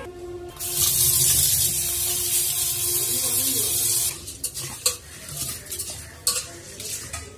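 Tap water running into a steel pot of raw rice for about three and a half seconds, then a hand swishing and rubbing the rice in the water: washing rice before cooking it, with light knocks against the pot.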